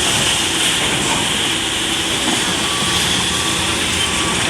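Heavy diesel machinery (excavator and dump truck) running loudly, with a reversing alarm starting to beep at a steady pace about halfway through.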